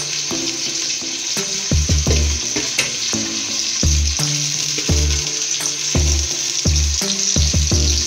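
Sliced onions sizzling as they fry in oil in an aluminium pot, with a steel ladle stirring them and scraping and clinking against the pot now and then. They are being fried until brown. Low tones come and go about once a second underneath.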